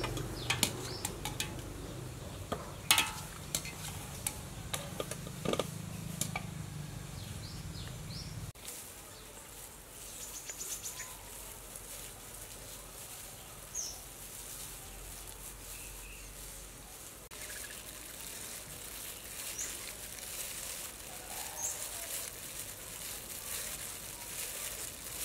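A wire strainer clinks against a steaming aluminium pot and bowl as boiled potatoes are lifted out: a few sharp metal knocks over a low rumble. About eight seconds in the sound cuts to quieter outdoor ambience with a few short bird chirps.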